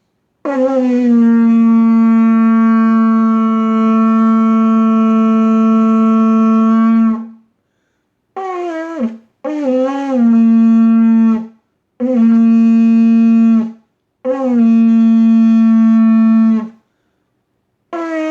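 Shofar blown in a series of blasts: one long steady blast of about seven seconds, then a short note and three blasts of about two seconds each, each opening with a brief lower note that jumps up to the held tone.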